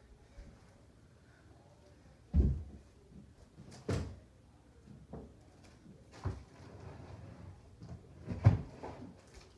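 A handful of separate dull knocks and thumps, about five over several seconds, with the loudest near the end.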